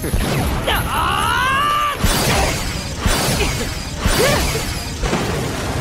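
Anime fight sound effects: a high pitched sound gliding downward about a second in, then three sudden hits with whooshes, about a second apart.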